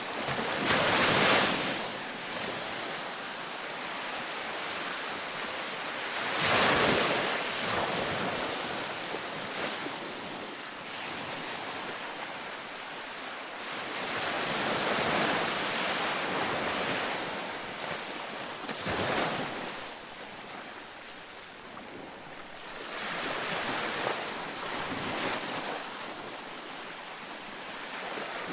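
Ocean waves breaking on a beach, rising in a louder surge every four to nine seconds over a steady wash of surf between them.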